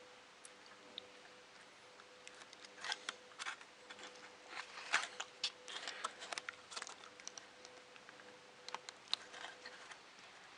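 Scattered small clicks and handling noises of a flexible keyboard membrane ribbon tail being worked into its connector on a ZX Spectrum+ circuit board, busiest in the middle, over a faint steady hum.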